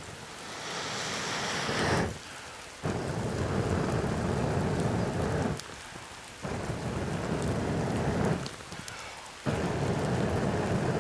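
A man blowing hard and steadily into the base of a smoking split-log Finnish torch to get the damp wood to catch. The blows come about four times, each two to three seconds long, with short pauses for breath between.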